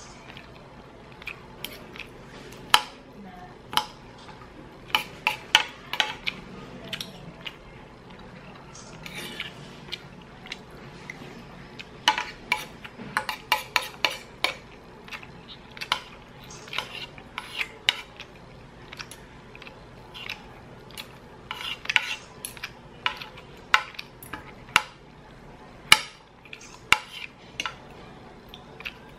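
Metal spoon and fork clinking against a ceramic plate while eating: scattered sharp clinks, some coming in quick runs of several.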